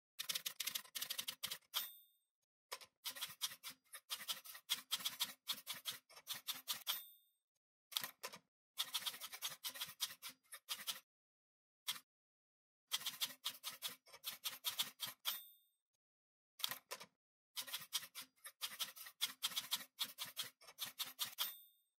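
Typewriter sound effect: runs of rapid key clacks broken by short pauses, with four of the runs ending in a short bell ding.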